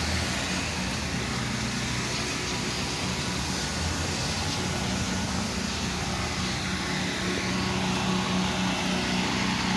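Pressure washer engine running steadily with an even hiss over it.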